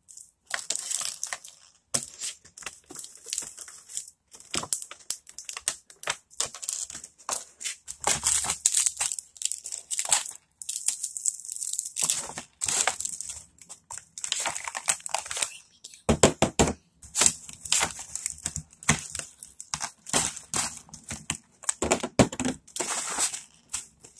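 Packaging crinkling and rustling as slime-kit items are handled and taken out of their box: irregular crackles with a few short pauses.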